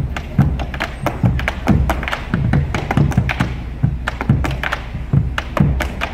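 Rapid rhythmic street percussion: sharp taps and stamps, many a second, over deep thumps.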